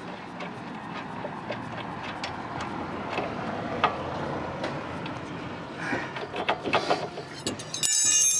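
Small metallic clicks and scrapes of hand work on the rusty lower bolt of a car's rear shock absorber mount. Near the end comes one loud, ringing metallic clang.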